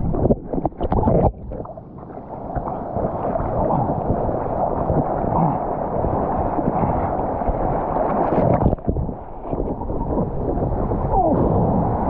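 Sea water rushing and splashing around an action camera held at the surface of the water, with wind buffeting the microphone. The noise drops away briefly about a second and a half in and again near nine seconds.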